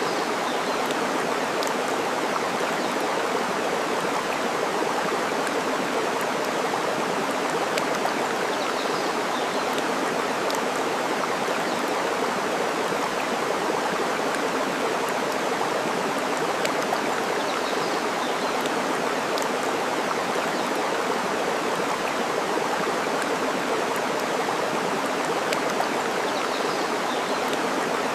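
Steady rush of flowing water, even and unbroken, with a few faint crackles from a burning wood fire.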